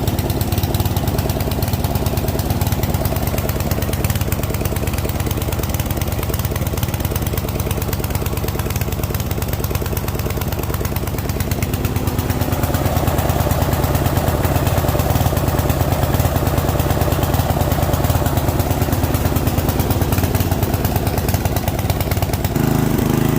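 Briggs & Stratton 12.5 hp engine of a Yard Machine MTD ride-on mower running steadily on choke while it warms up just after starting. Its note shifts about halfway through and changes again shortly before the end.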